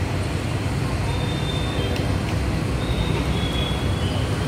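Street ambience with a steady low rumble of road traffic and a few faint, short high-pitched tones.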